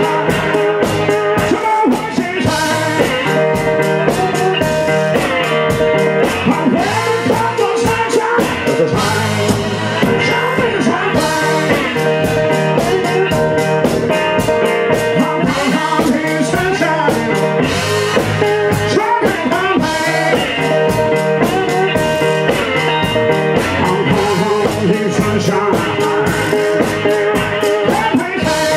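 A live blues-rock band playing a fast song: guitar over a steady, driving beat, with a voice singing.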